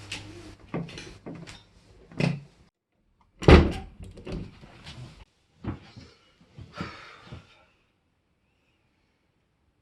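A door being handled and shut: a series of knocks and thuds, with one loud bang about three and a half seconds in and a few lighter knocks after it.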